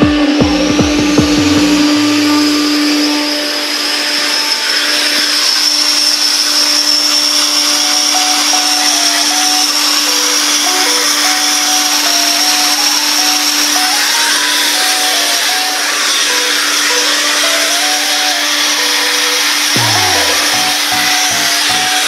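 Compressed-air plant running, from a rotary air compressor and its air dryer: a loud, steady rushing hiss with a hum. A low throbbing dies away in the first few seconds and comes back near the end.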